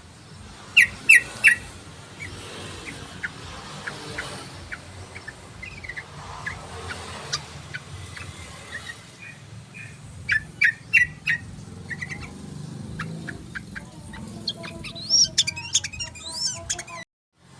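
Yellow-vented bulbul (trucukan) calling: loud clusters of three or four quick chirping notes about a second in and again about ten seconds in, with softer scattered chirps between. A busier run of calls comes near the end, then the sound cuts out for a moment.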